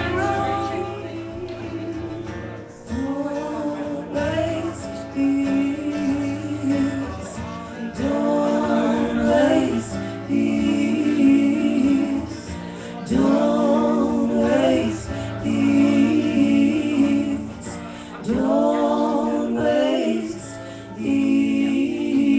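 A live band playing: singing over guitar, in sung phrases a few seconds long with a steady low note held beneath.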